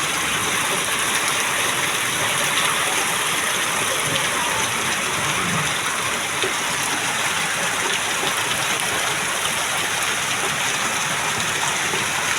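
Heavy rain falling steadily, a continuous dense hiss of drops splashing on hard surfaces.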